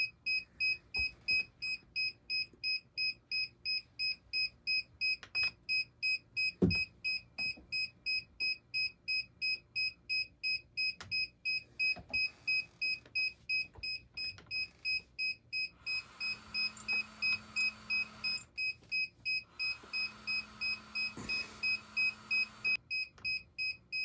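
Rapid, evenly spaced high beeping, about three beeps a second, that signals linking mode while a DJI Mavic Air 2 pairs with a DJI smart controller. A single knock comes about seven seconds in, and two stretches of faint hum and hiss, each a couple of seconds long, come in the second half.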